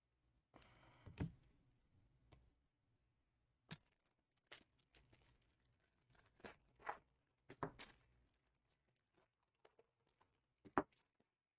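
Trading-card pack wrapper torn open about half a second in, followed by a string of faint crinkles and light taps, the sharpest near the end.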